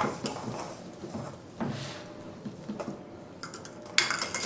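Small plastic cups slid and tapped on a wooden cutting board, giving soft scraping and light knocks. About four seconds in comes a sudden sharp clatter as a white-faced capuchin monkey snatches up one of the cups.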